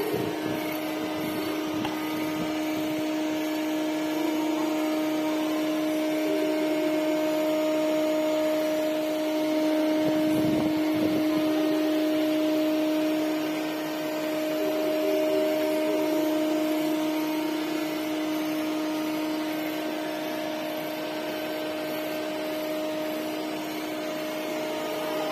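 Line boring machine running steadily, a constant even hum from its boring-bar drive.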